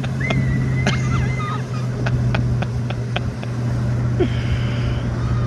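Motorboat engine running at a steady pace, an even low drone. A few thin high chirps come early on, then a quick run of short ticks.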